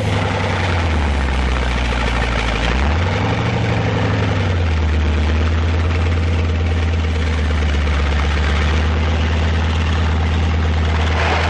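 Engine of an M4 medium tank dozer running under load as it pushes through a steel-rail obstacle. Its note sags about a second in, swells back up around three seconds in, then holds steady, with a constant noisy clatter over it.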